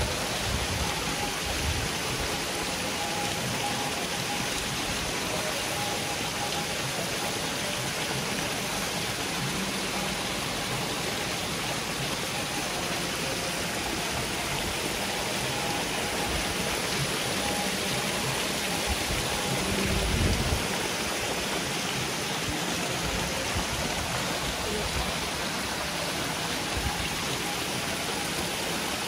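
Thousands of hybrid magur catfish splashing and churning at the water surface of a crowded feeding tank, a steady, even splashing hiss. A brief low bump about two-thirds of the way in.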